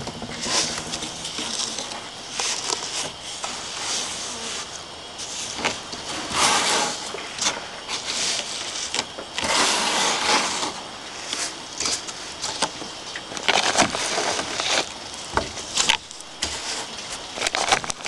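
Hands scooping and packing a wet, sand-like mixture onto a model volcano cone: irregular crunching and scraping, with louder bursts about six and ten seconds in.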